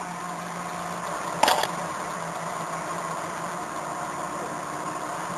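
Hot-wire foam-cutting CNC machine running with a steady mechanical hum. A brief, sharp noise sounds about a second and a half in.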